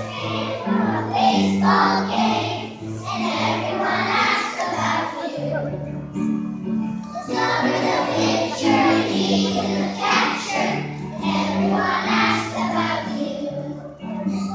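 A large children's choir singing a song together over an instrumental accompaniment.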